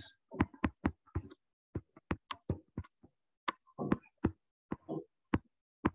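Irregular light taps and clicks of a stylus writing on a tablet screen, about three or four a second.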